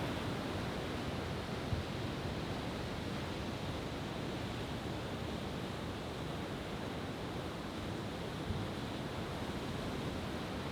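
Steady rushing noise of surf and wind, with two faint low thuds several seconds apart.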